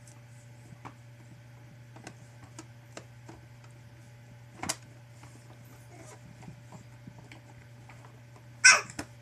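Light, scattered plastic clicks and knocks from a baby's hands working the buttons and knobs on a plastic ride-on toy's activity panel, with a sharper knock about halfway and a loud, brief burst near the end. A steady low hum runs underneath.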